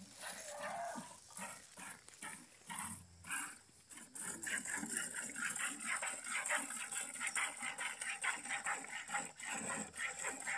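A cow being milked by hand into a plastic bucket: from about four seconds in, quick, even squirts of milk hit the pail.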